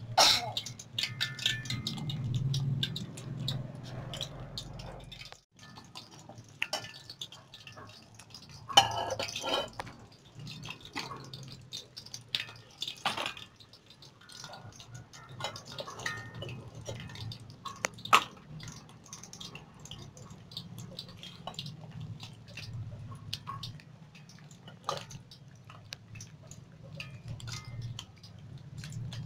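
Scattered light clinks and taps of metal and plastic kitchenware being handled, over a low steady hum.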